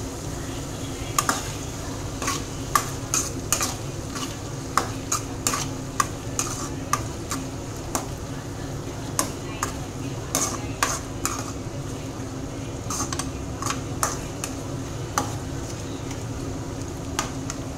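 Metal spatula stirring chopped onions in a metal kadai, with irregular scrapes and clinks against the pan from about a second in, over onions sizzling in oil.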